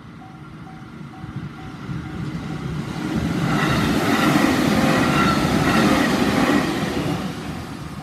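Electric commuter train of the JR Tokaido Main Line passing over a level crossing, its rumble building, loudest through the middle and fading near the end. The crossing's electronic warning bell rings throughout, about two and a half beats a second, mostly drowned out while the train goes by.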